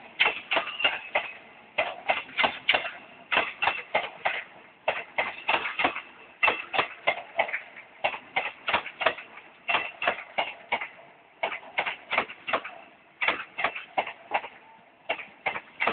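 Wheels of the Eastern & Oriental Express's passenger coaches clicking over rail joints as the train rolls past. The clicks come in quick groups of three or four, a group about every second.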